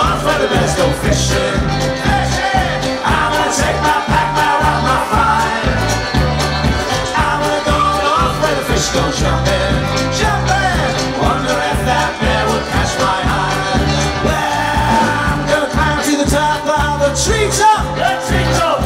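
A live folk-rock band playing through a PA with guitars and a steady beat, heard from within the audience.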